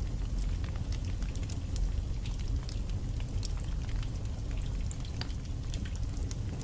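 Logs burning in a fireplace: frequent irregular sharp crackles and pops over a steady low rumble of the fire.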